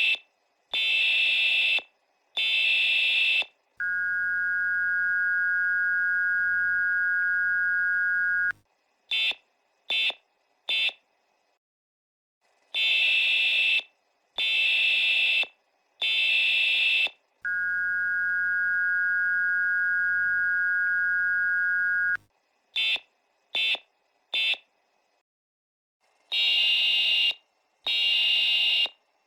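US Emergency Alert System signal played sped up and raised in pitch. Three screeching data bursts of the header are followed by the steady two-tone attention signal for about five seconds, then three short end-of-message bursts. The whole sequence repeats twice, with a pause between each round.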